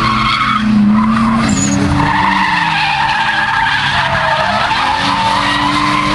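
A car drifting: its engine is held at high revs while the rear tyres squeal continuously through a long slide. The engine pitch sags and then climbs again about four to five seconds in.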